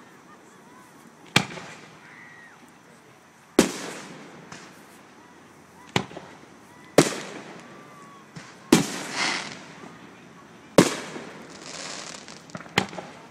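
Aerial firework shells bursting: about seven sharp bangs one to two seconds apart, each trailing off in a rolling echo.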